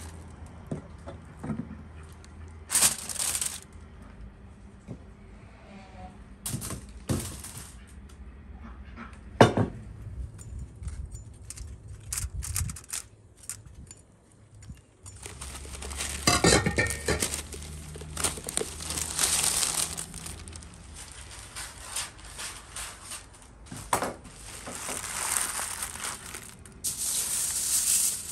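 Parchment paper and aluminium foil crinkling and rustling as a raw chicken is wrapped by hand, with scattered light clicks and clinks. The longest stretches of crinkling come about two thirds of the way through and again near the end.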